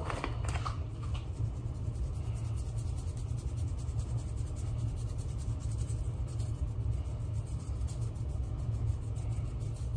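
Seasoning shaken from a plastic spice shaker over raw steaks: faint, rapid ticking and patter, over a steady low rumble that is the loudest sound.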